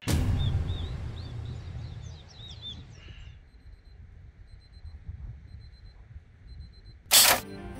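Birds chirping over a low rumble for the first three seconds, then a faint high beeping that repeats in short groups. About seven seconds in, a sudden loud burst of noise lasts about a third of a second.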